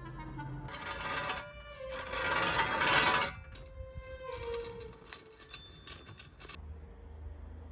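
Metal shovel blade scraping over paving stones as it is dragged, in two noisy strokes about a second in and from two to three seconds in, the second the louder, over soft woodwind music.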